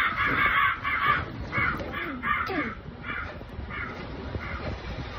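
A rapid run of harsh crow caws, played as a film sound effect over cinema speakers, about two to three a second, growing fainter and fading out.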